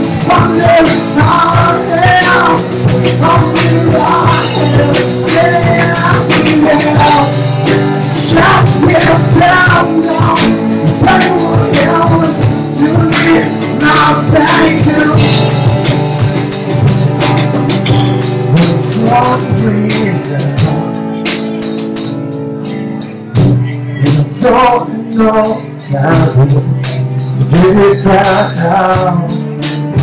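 A live rock band playing a song: acoustic and electric guitars, a drum kit, and a lead vocal. The band quietens for a few seconds past the middle before coming back in full.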